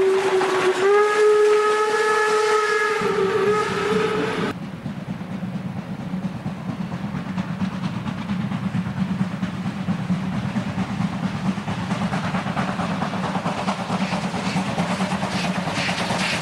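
A steam locomotive's whistle sounds one long blast, stepping up a little in pitch about a second in, and cuts off abruptly after about four and a half seconds. Then a steam train is heard approaching from afar as a steady rumble, its exhaust beats growing clearer near the end.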